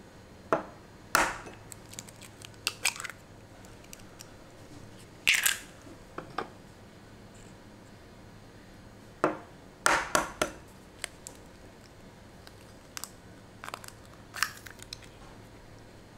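Eggs cracked on the rim of a plastic egg separator: groups of sharp taps and crunches of breaking shell, a few seconds apart.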